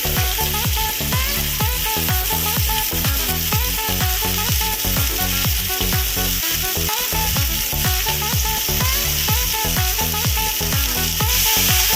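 Potatoes and jukti flowers frying in hot mustard oil in a kadai, a steady sizzle, under background music with a steady beat.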